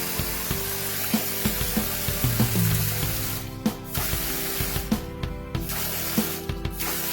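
Background music with steady held notes and a regular beat, over an even hiss that cuts out briefly a few times.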